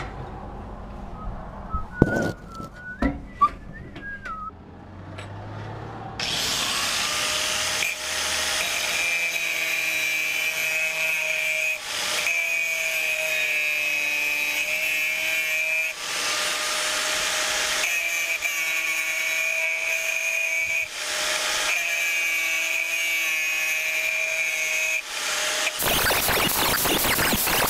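A few knocks as the steel axe head is set in place, then an angle grinder runs with a steady high whine as its disc grinds a V-channel into the steel along a crack, ready to be filled with weld. The disc eases off the metal for a moment every few seconds.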